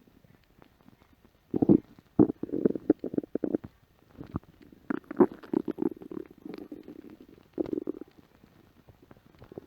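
A hungry person's empty stomach growling in about three gurgling bouts, starting about a second and a half in, with short pauses between them.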